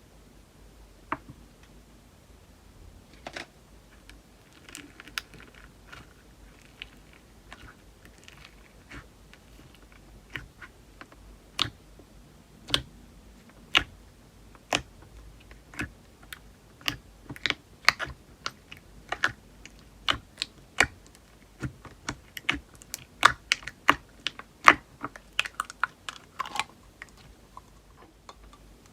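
Slime being pressed and poked by hand, popping in sharp little clicks as air pockets burst. The clicks are sparse at first and come faster and louder in the second half.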